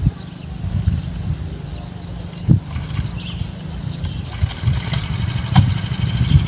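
Engine of a Quick Cakar Baja mini tiller running, its level rising and falling as it works the soil, with a couple of sharp knocks.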